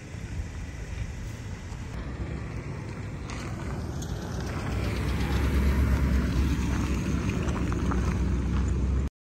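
Vehicles rolling past at low speed: a steady engine and tyre rumble that grows louder about halfway through as a pickup truck drives close by over gravel, then cuts off abruptly near the end.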